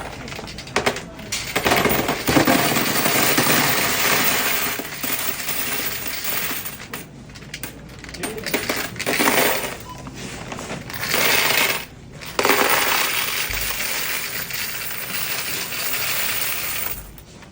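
Loose coins poured into a Coinstar coin-counting kiosk, clattering and rattling as they feed into the machine. They come in several surges with brief breaks, then stop near the end.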